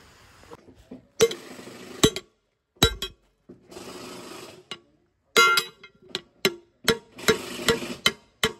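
Sharp metallic knocks and clinks of hand tools on metal parts, about a dozen strikes, some ringing briefly, with the sound cutting out abruptly between short stretches.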